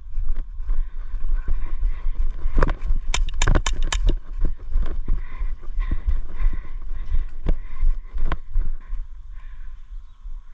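Airsoft gun firing: a quick string of about six or seven sharp shots a couple of seconds in, then two single shots later, over a constant low rumble.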